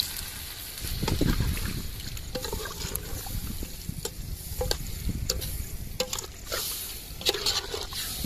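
Chicken feet in wet masala being stirred in a metal pot, first by hand and then with a ladle: wet squelching and sloshing, with scattered sharp clicks of the ladle against the pot. A low rumble runs underneath.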